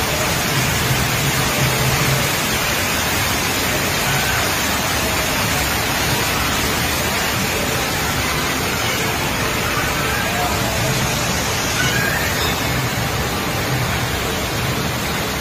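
Rainwater rushing steadily over temple steps and floor grates, a loud even rush of flowing water.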